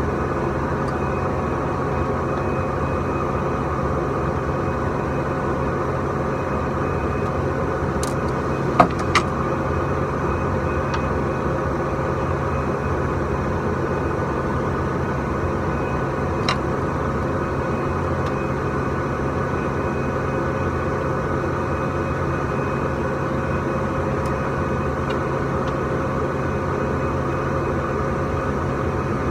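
Steady machinery hum of a factory floor with several fixed tones. A few sharp clicks of plastic parts being handled on the printer's ink system: two close together about a third of the way in, and a fainter one a little past halfway.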